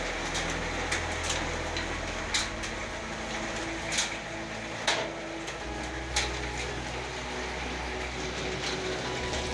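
Hail falling with rain: a steady hiss with irregular sharp ticks of hailstones striking, roughly one a second.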